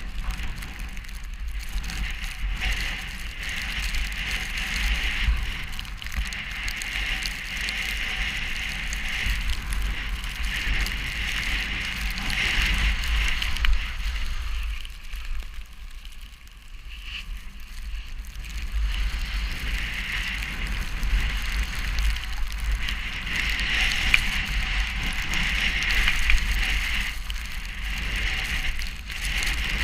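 Snowstorm wind: a low rumble of wind buffeting the microphone under a gusting hiss. The gusts ease off for a few seconds midway.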